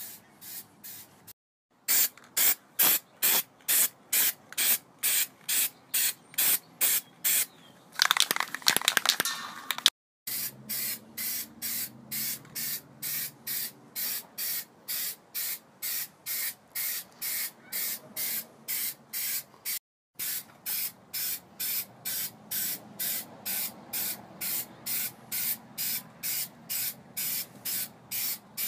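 Aerosol spray can hissing in quick short bursts, about two a second, as a black coating is sprayed onto a chrome bumper. The bursts are louder for the first several seconds, then quieter.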